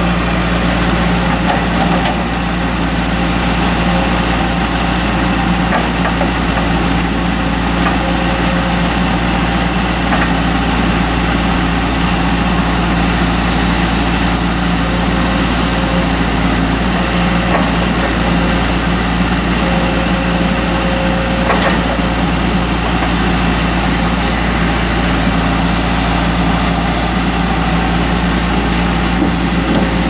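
New Holland LS190 skid steer's diesel engine running steadily while the machine drives and lifts its loader bucket, with only slight changes in its note under the hydraulic load.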